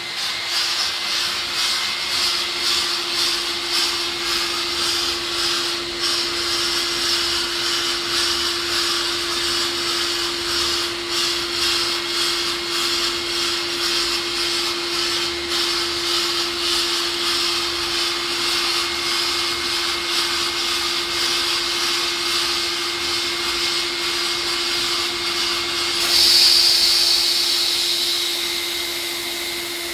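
Hand-operated sandblasting table at work: a steady hiss of air and abrasive from the blast head, with a steady hum underneath. About 26 seconds in the hiss jumps louder and sharper, then eases off over the last few seconds.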